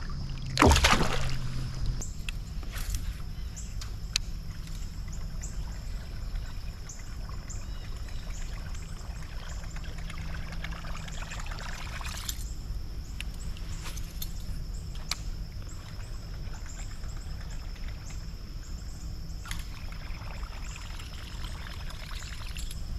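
Creek water moving and lapping around a kayak, with one sharp splash about a second in.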